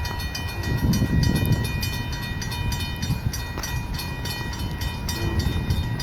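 Light-engine consist of diesel locomotives (an SD40-3, a GE AC4400CW and a C40-8W, no cars) going by with a heavy low engine rumble. A thin steady whine rides over it and fades out about halfway through.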